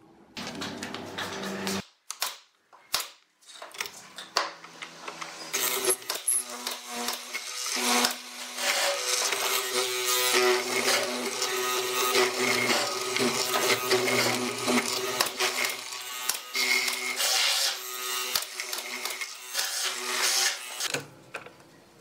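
Drill press fitted with a square hollow-chisel mortising attachment, running and plunging repeatedly into pine to cut a square mortise. A steady motor hum sits under crunching, chattering cutting noise, and it stops near the end.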